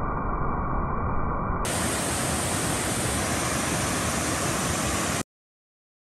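Steady rush of water from a cascading rocky waterfall. About a second and a half in, the sound turns brighter and hissier, and it cuts off suddenly about five seconds in.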